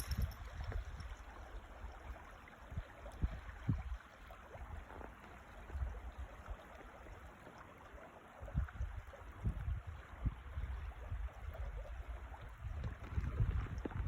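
Wind buffeting the microphone in irregular gusts, over a steady soft rushing hiss.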